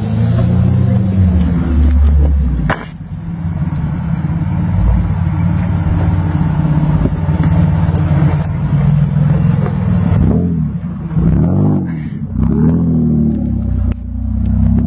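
Off-road SUV engine running under load on a rough rocky track, with one sharp knock about three seconds in. Near the end the engine's pitch rises and falls several times as it is revved.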